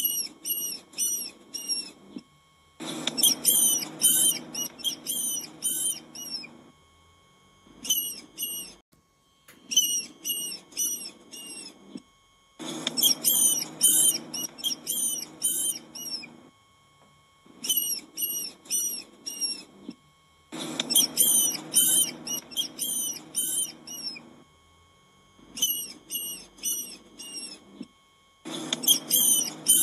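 Mice squeaking: short, high-pitched chirps, several a second, in bursts with short pauses between them. A low background noise comes and goes under some of the bursts.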